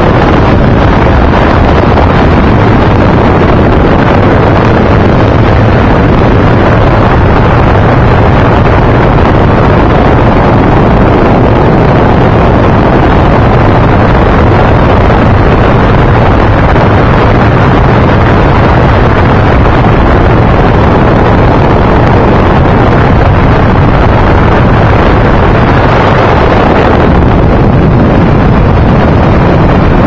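Ultralight aircraft in flight: a steady engine drone under a loud, continuous rush of wind on the microphone.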